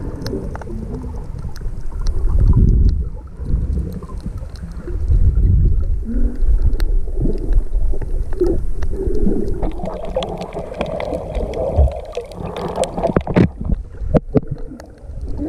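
Underwater sound from a camera held just below the surface: low rumbling and gurgling water movement that swells and eases, with scattered sharp clicks that grow thicker in the second half.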